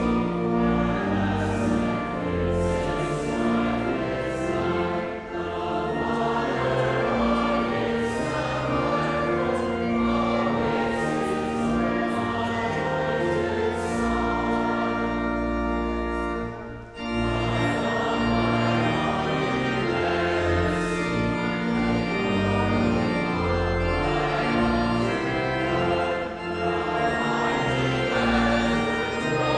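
A congregation singing a hymn with organ accompaniment, in long held notes, with a short break between verses a little over halfway through.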